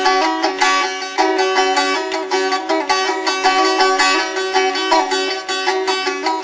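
Strum stick strummed fast and continuously: even strokes over steady drone notes, with the melody notes above them changing step by step.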